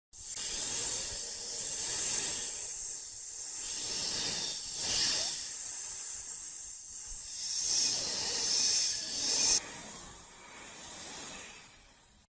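Continuous hissing noise, strongest in the highs, swelling and easing several times and brightening a little after about two thirds, then cutting off abruptly.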